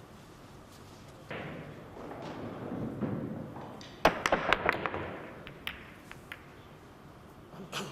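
Pool cue striking the cue ball about four seconds in, followed by a quick run of sharp clacks as the balls hit each other and the cushions, then a few scattered clicks as they roll to a stop.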